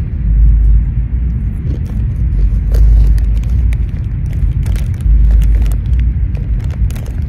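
Wind buffeting the phone's microphone: a loud low rumble that swells and drops in irregular gusts. A few faint crinkles of snack bags being handled come through over it.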